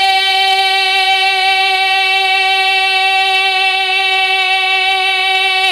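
A man singing a naat holds one long high note at a steady pitch, drawn out with no words. Right at the end it breaks into a wavering, ornamented run.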